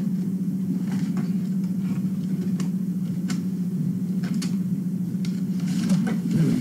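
A steady low machine hum, with scattered light rustles and taps as a cardboard box is opened and the things inside are handled.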